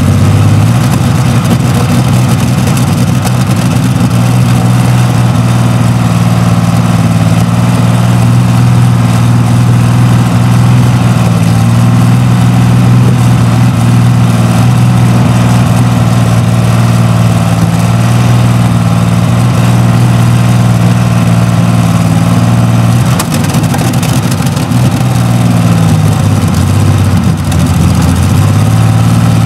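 Rolls-Royce Meteor 27-litre V12 tank engine running loud and steady. Its revs wobble briefly about two-thirds of the way through and again near the end.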